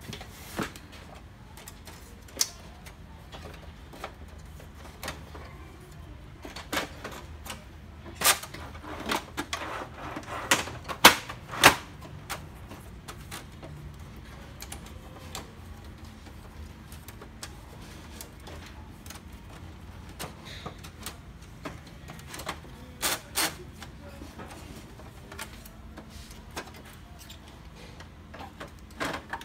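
Plastic clicks and knocks from an HP LaserJet M135a printer's casing and panels being handled and pried apart, a scatter of sharp knocks with the loudest pair about eleven seconds in and another pair about twenty-three seconds in.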